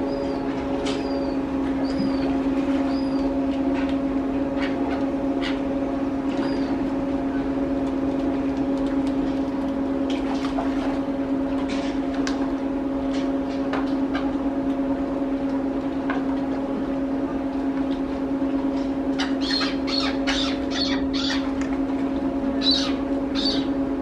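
A steady low mechanical hum runs throughout and is the loudest sound. Over it come short, high, curved bird chirps repeated every half second or so in the first few seconds, then a quick run of chirps and clicks near the end.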